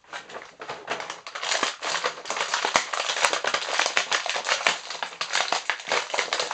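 Plastic packaging of a boxed action figure crinkling and crackling as it is handled and pulled open: a dense, continuous run of small clicks and rustles.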